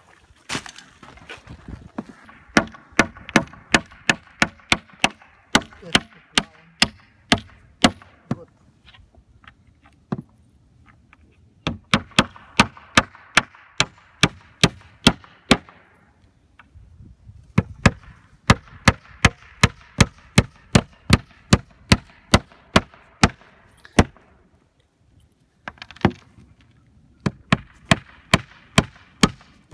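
Roofing nails being driven into shingles: sharp strikes at about two a second in runs of several seconds, broken by short pauses.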